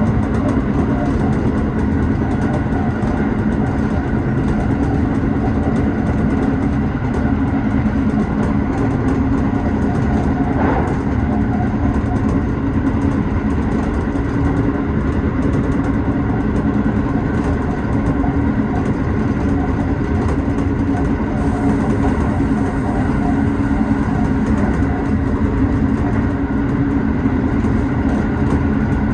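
Tobu 6050 series electric train heard from inside the lead car: a steady hum with a few constant tones over a low rumble, unchanging in pitch and level.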